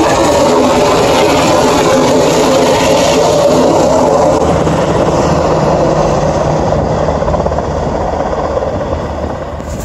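Helicopter flying overhead, its steady rotor and engine noise fading as it moves away over the last few seconds.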